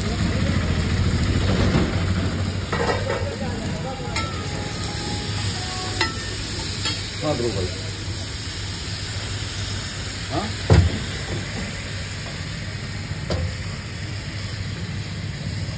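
Egg and masala mixture sizzling on a large flat metal griddle (tawa) while a flat metal spatula scrapes and chops across the plate. A few sharp clicks of the spatula striking the griddle, the loudest about eleven seconds in.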